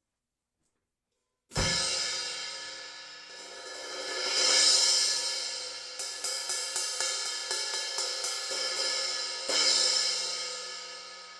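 A 13-inch Wuhan B20 crash cymbal played alone: struck once about a second and a half in and left ringing, its wash swelling up again, then tapped lightly about three times a second, and crashed again near the end, ringing out.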